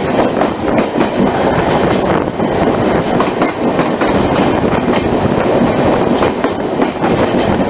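Passenger train running along the track, heard from aboard: a steady rumble of wheels on the rails with irregular clicks and rattles.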